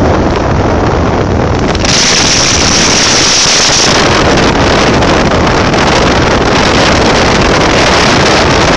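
Cessna 152's four-cylinder Lycoming engine and propeller running steadily in the cockpit while taxiing, with a brighter high hiss joining about two seconds in.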